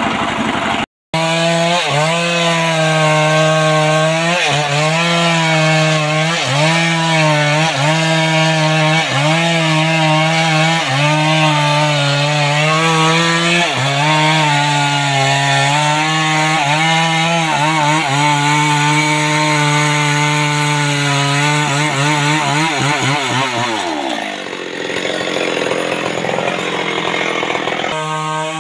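Two-stroke chainsaw cutting into a tree stump. The engine note dips and recovers every couple of seconds as the chain bites into the wood under load. Near the end the engine winds down as the throttle is released.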